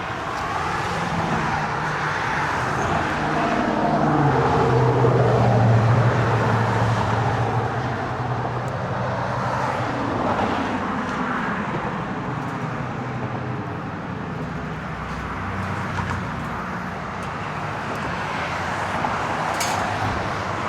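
Road traffic passing on the bridge, with one vehicle's engine hum growing to its loudest about five seconds in and then fading away. A short click near the end.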